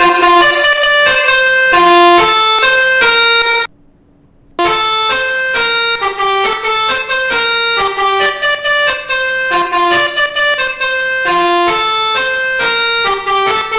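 Indonesian bus 'telolet basuri' musical horn playing a tune, note after note of short held tones. It cuts out abruptly for about a second near four seconds in, then plays on.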